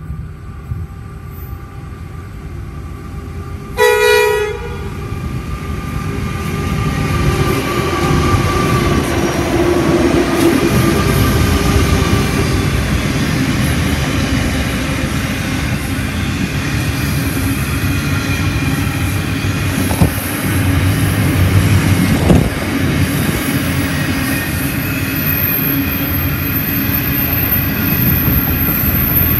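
Freight train led by an NR class diesel-electric locomotive: one short horn blast about four seconds in as it approaches, then the locomotives and laden wagons rumble past with steady wheel-on-rail noise. Two sharp clanks come about two-thirds of the way through.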